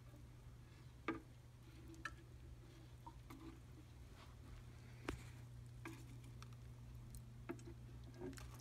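Near silence: a steady low hum of room tone, with a few faint, scattered clicks and taps.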